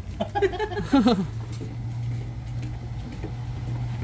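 A steady low engine hum, with a short falling vocal exclamation about a second in.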